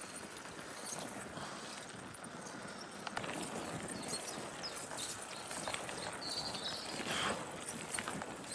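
Bicycle riding fast over a rough track: tyres crunching and the bike rattling with irregular clicks and knocks, over a steady rush of wind noise on the microphone.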